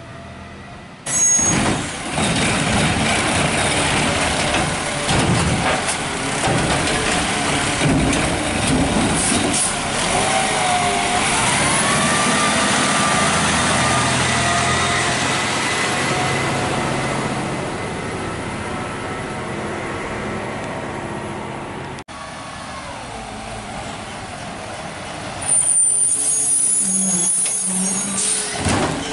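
Peterbilt 520 garbage truck with a McNeilus ZR side-loader body: air brakes hiss about a second in, then the diesel engine runs as the truck drives, its note rising partway through. Near the end another sharp air-brake hiss comes as the truck stops at the carts.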